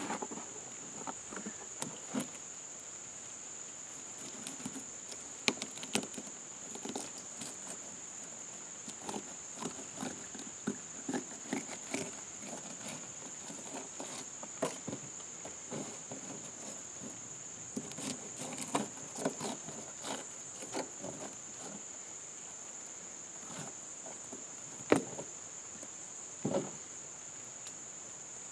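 A steady high-pitched insect drone runs throughout, under irregular taps, clicks and scrapes from handling and filleting fish on a canoe. Two sharper knocks near the end are the loudest sounds.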